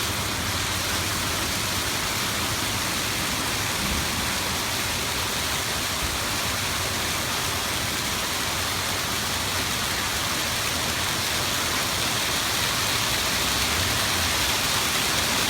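Hail coming down hard, a dense, steady hiss of countless stones striking, growing slightly louder near the end.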